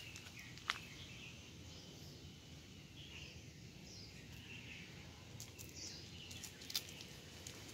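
Faint outdoor background noise with a few distant bird chirps and several sharp clicks.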